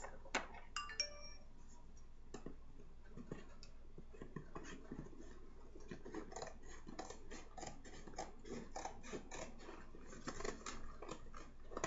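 Scissors scraping and snipping at a cardboard shipping box to cut it open, a quiet, irregular run of small scratches and clicks.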